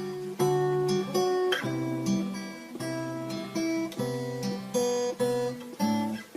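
Instrumental music: an acoustic guitar strumming chords about twice a second, each chord ringing on, with no singing.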